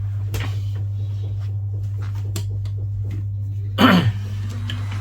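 Steady low electrical hum with a few light clicks of small tools being handled on a workbench. About four seconds in, a person clears their throat once, followed by a faint rising whine.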